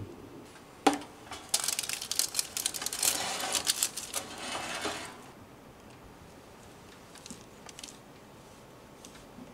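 A Bruno steam convection toaster oven's door clicks open, then its metal rack and baking tray rattle and clatter for a few seconds as they are handled and pulled out. Near the end come a few faint scrapes of hard cheese on a fine rasp grater.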